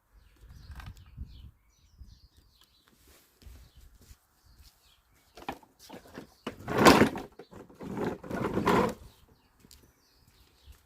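Light knocks, then two loud scraping, rattling noises about a second apart, as a walk-behind lawnmower is tipped and set back down onto its wheels.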